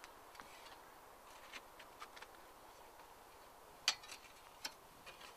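Faint, scattered scrapes and clicks of an excavation hand tool against soil and stone, with a sharper click about four seconds in, over a quiet open-air background.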